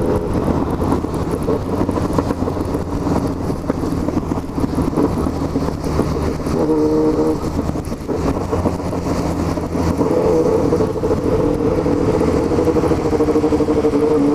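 Yamaha MT-09 three-cylinder engine running at a steady cruise, under a continuous wash of wind and wet-road noise.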